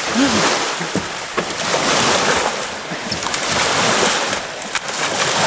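Ocean surf washing in on the shore, swelling and easing, with wind on the microphone and a few faint knocks.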